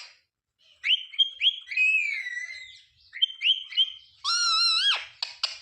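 Ringneck parrot calling: quick whistled chirps and a falling whistle from about a second in, more chirps, then a longer, harsher call near the end.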